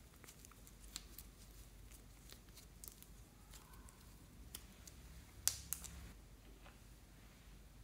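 Fluffy slime being stretched and folded by hand, with faint sticky crackles and small pops, then two sharper clicks about five and a half seconds in.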